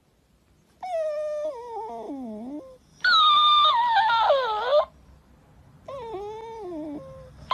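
Shiba Inu puppy whining in long, drawn-out whines, three in a row that each slide down in pitch, with a fourth starting right at the end; the second is the loudest.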